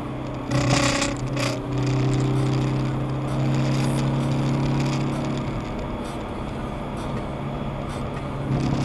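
Car cabin sound while driving: a steady engine hum with road noise, and two short rushing noises about a second in.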